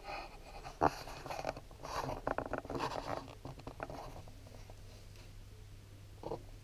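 Irregular rustling with scattered clicks and knocks, the sharpest about a second in, from a hand-held camera being moved about. A faint steady low hum comes in at about four seconds.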